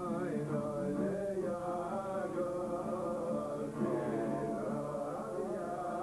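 Group of men singing a melody together in a chant-like unison, with an acoustic guitar accompanying them.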